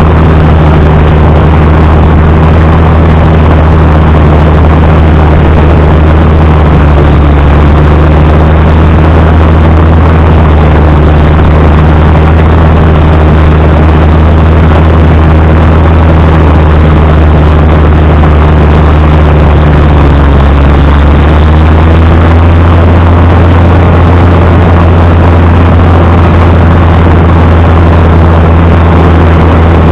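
Allis-Chalmers D19 tractor engine running steadily and loud, back running after a fuel-supply stoppage. Its pitch shifts slightly about a quarter of the way in and again about two-thirds through.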